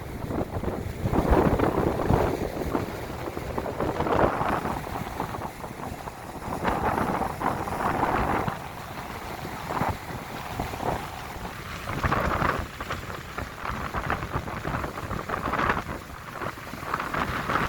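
Wind gusting across the microphone, a rumbling noise that swells and fades every few seconds.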